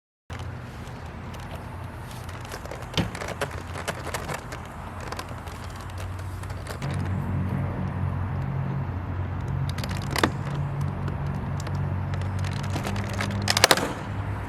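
Car engine running at idle, a steady low hum that grows louder about seven seconds in, with scattered clicks and knocks over it, the sharpest a quick cluster near the end.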